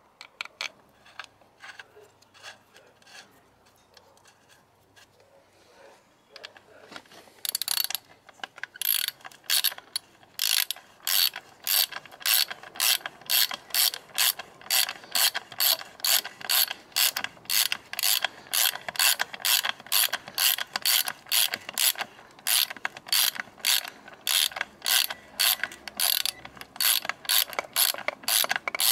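Faint handling of a bolt, then from about seven seconds in a ratchet wrench clicking steadily, about two strokes a second, as a leg bolt on the outboard's lower unit is run in.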